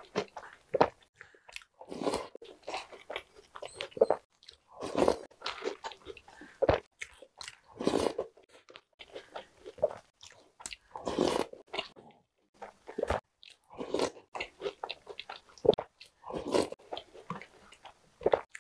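Close-miked eating of Jolly Pong puffed-wheat cereal and Oreo cookies soaked in milk: a spoonful taken into the mouth about every three seconds and chewed, with short clicks of a wooden spoon on the bowl in between.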